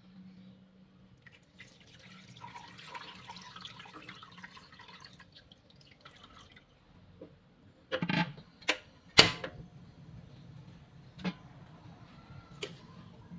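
Coconut milk pouring from a bowl into a wok: a soft, splashing hiss in the first few seconds. About eight seconds in come several sharp knocks and clatters of kitchenware, the loudest just after, then a couple of lighter clicks near the end.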